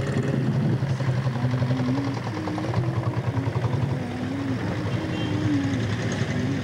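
Motor vehicle engine idling in street traffic, with a separate wavering tone gliding up and down above it.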